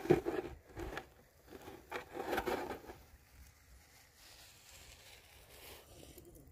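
Hands scraping and crunching in coarse sand and grit beside wooden line reels, in a few short bursts during the first three seconds, then only a faint rustle.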